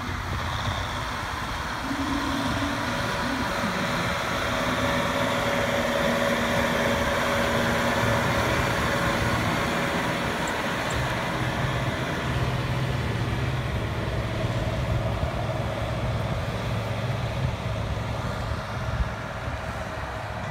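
Large farm tractor's diesel engine running steadily under load as it pulls a carry-scraper over loose soil, louder through the middle as the tractor comes close.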